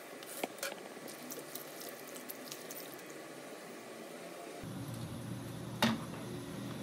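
Cut vegetables handled in a stainless-steel bowl of water: a run of small clicks and drips, then, about six seconds in, a single sharp clank as the steel bowl is set down on the cooktop. A low steady hum runs underneath from about five seconds in.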